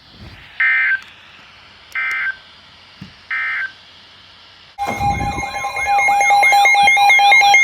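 Emergency Alert System data tones: three short, identical bursts of screechy digital tones (the SAME code bursts that end an alert message). About five seconds in, a loud alert tone starts: steady tones with a wavering, siren-like sweep over them.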